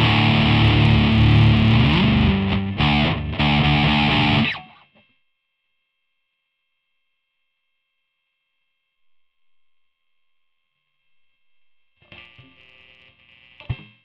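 Electric guitar played through a Boss ME-20 multi-effects pedal with its overdrive/distortion on: loud distorted chords that cut off sharply about four and a half seconds in. After a long silence, faint guitar sound returns near the end, with a sharp click just before the end.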